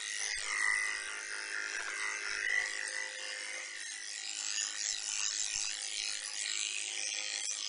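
Electric dog grooming clippers running with a steady buzz as they shear through a dog's curly, unbrushed coat along its side and leg.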